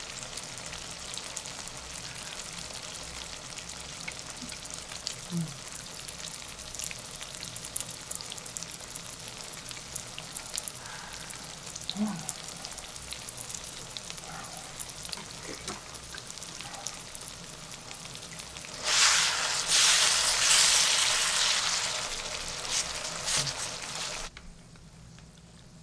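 Beef small and large intestines sizzling and crackling steadily on a hot grill pan. About 19 s in, the sizzle turns much louder for about five seconds as the pieces are moved with tongs, then it drops away suddenly.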